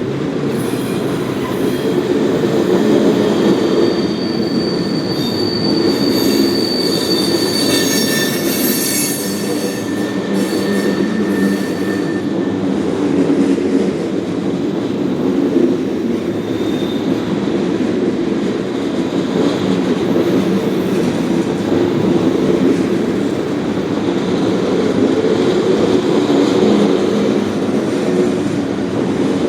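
Ethanol train's tank cars rolling past, a steady rumble of steel wheels on rail, with a high wheel squeal from about four seconds in until about twelve seconds.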